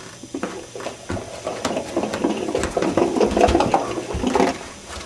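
Small Lego car pushed by hand across a wooden floor: plastic wheels and bricks rattling and clicking irregularly.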